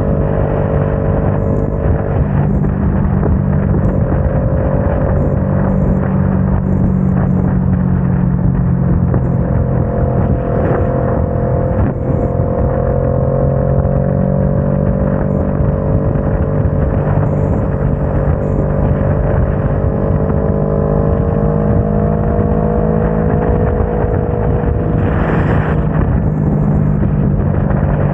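Motorcycle engine running at a steady highway cruise of about 60 mph, its pitch wavering slightly with small throttle changes, under heavy wind rush on the microphone. A brief louder whoosh comes near the end.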